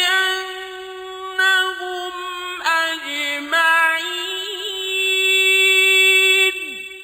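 Male Quran reciter chanting in the melodic mujawwad style, holding one long ornamented note with small turns and steps in pitch. The note drops away and fades near the end, closing the verse.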